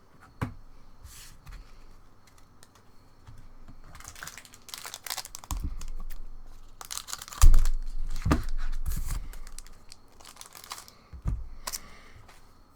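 A foil trading-card booster pack being torn open and its wrapper crinkled, in irregular rustling bursts, with a few knocks of cards and hands against the table, the loudest about halfway through.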